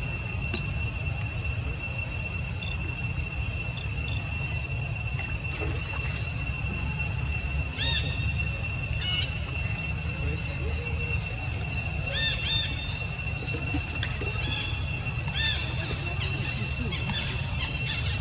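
Steady high-pitched drone of insects over a low steady rumble, with short high chirps, some in pairs, about eight seconds in, again about twelve seconds in and a few times after.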